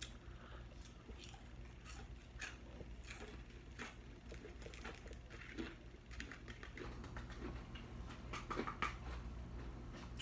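A person eating close to the microphone: irregular wet chewing and lip-smacking clicks.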